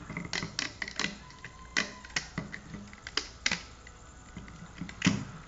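Irregular sharp clicks and taps as rubber bands snap off the plastic pegs of a Rainbow Loom while the finished bracelet is pulled off.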